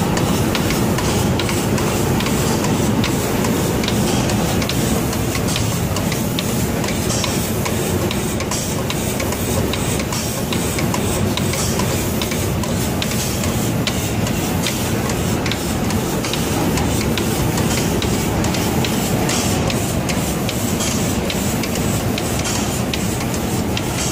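Automatic cabinet-door spray-painting machine running: a steady mechanical din with a hiss of air and spray and a fast, irregular ticking.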